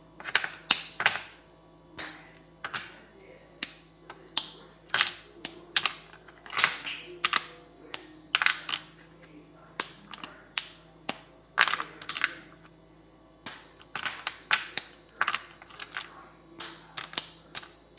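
Irregular sharp clicks and taps of kitchen utensils, about two or three a second, from hands-on food preparation.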